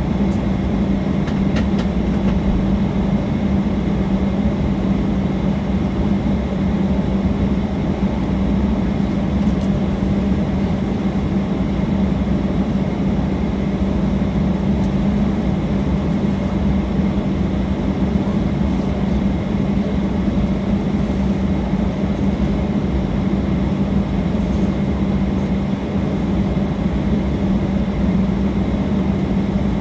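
Cabin noise of a Boeing 737-800 taxiing to its stand, heard inside the cabin: its CFM56-7B engines at idle give a steady hum with a strong low drone.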